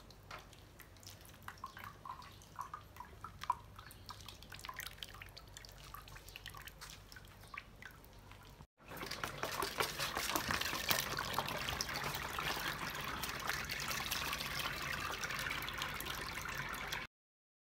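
Hands squelching soaked baobab fruit pulp in a pot of liquid, with small drips and splashes. About nine seconds in, a cut to baobab juice pouring steadily from a metal pot through a sieve into a bucket, louder, cutting off abruptly near the end.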